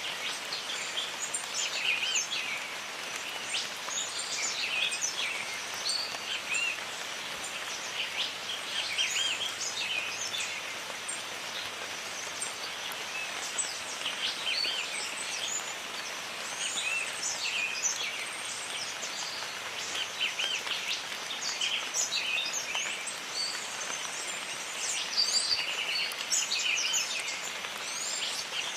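Jungle ambience: steady rain hiss under many birds chirping and calling, the calls coming in clusters.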